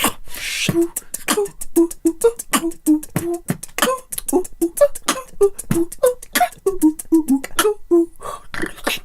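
Human beatbox: a fast, steady beat of mouth-made kick, snare and click sounds woven with short pitched 'ooh' notes, a vocal synth sound like a monkey's hoot, that shift up and down in pitch.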